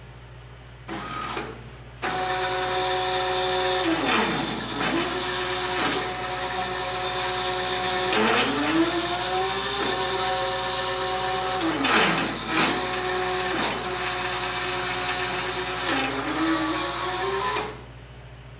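Stepper motors driving a CNC plasma table's gantry whine through a cutting path with the torch off. After a short move about a second in, they run steadily. Their pitch sweeps down and back up about four times as the axes slow and speed up through direction changes, and the sound stops abruptly near the end.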